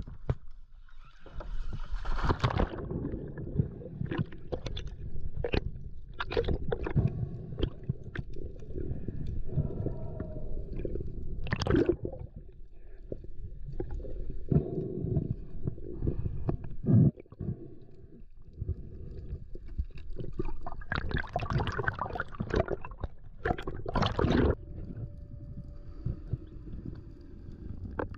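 A diver enters the sea with a splash about two seconds in, then underwater water rushing and bubbling around the camera, with scattered knocks and clicks. Louder rushes of water come near the end, followed by a faint steady hum.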